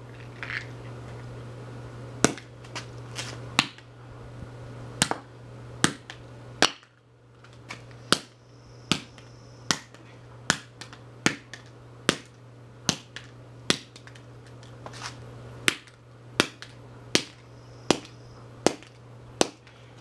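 Hammer blows striking the shattered plastic and metal remains of a Revlon hairdryer on concrete: sharp knocks, a few spaced out at first, then a steady run of about one every second from about 8 s in.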